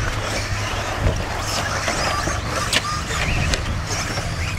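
Electric 1/10-scale RC off-road buggies racing on a dirt track: motors whining up and down and tyres on the dirt, with two sharp knocks, about a second in and near three seconds in.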